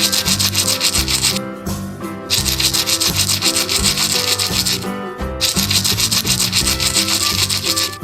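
Fast, rhythmic scrubbing strokes in three runs, pausing briefly about a second and a half in and again about five seconds in, over soft background music.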